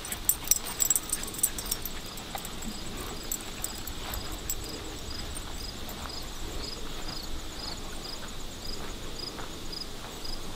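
Footsteps crunching on a dry woodland trail, with sharp crackles in the first couple of seconds. From about two seconds in, an insect's short high chirp repeats a little under three times a second.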